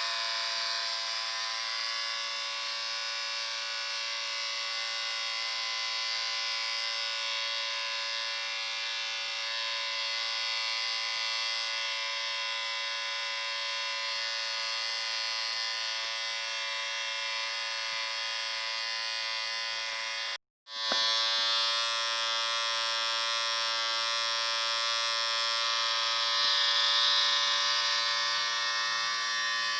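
Electric shaver buzzing steadily with an even, unchanging hum. About twenty seconds in it cuts out for a split second, then starts again slightly louder.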